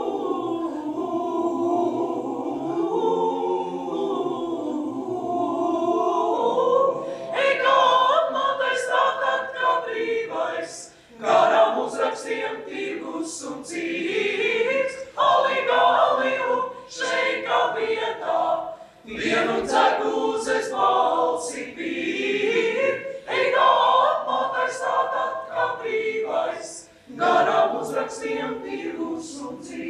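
Small mixed choir of men's and women's voices singing a cappella. It opens with soft held chords, then moves into livelier sung phrases that break off briefly three times.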